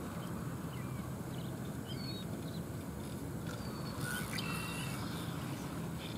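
Small birds chirping now and then over a steady low outdoor rumble, with a brighter, buzzier bird call about four seconds in.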